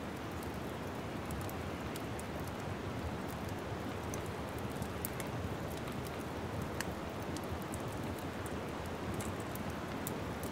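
Wood fire burning in a fireplace: a steady soft rush of flame with frequent small, sharp crackles.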